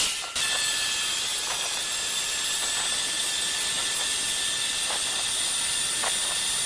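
Metal lathe running steadily, a hissing noise with faint high whining tones that starts just after the opening.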